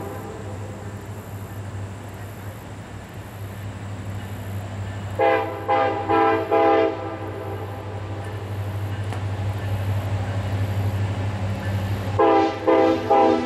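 Diesel freight locomotive's air horn blowing two groups of about three short blasts, the first about five seconds in and the second near the end. Under it, the low, steady rumble of the approaching train slowly grows louder.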